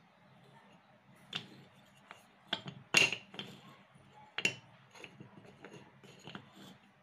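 Small teak wood strips clacking against each other and the stone floor as hands slide and push them together: a string of sharp separate knocks, the loudest about three seconds in.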